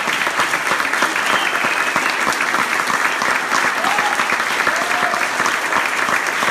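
Large audience applauding steadily, a dense crackle of many hands clapping, with a few voices calling out over it.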